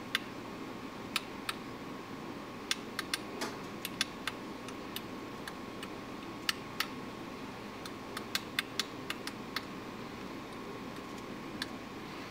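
Anet A8 extruder stepper motor running to feed filament into the hot end: a steady high whine over a low hum, with irregular sharp clicks.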